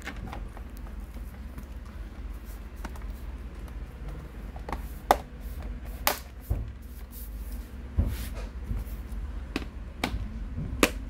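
Plastic bottom cover of a Lenovo Ideapad S340 laptop being pressed onto the chassis by hand: a scattering of sharp, irregular clicks as its clips snap into place.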